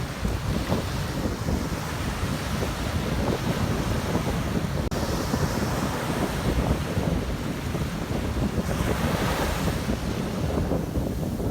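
Sea waves washing in steadily, with strong wind buffeting the microphone. A louder surge of surf comes about nine seconds in.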